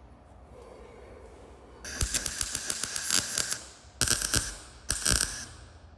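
MIG welder arc crackling and sputtering on thin automotive sheet metal, tacking a small steel patch in place. There are three short bursts: one lasting about a second and a half starting two seconds in, then two shorter ones.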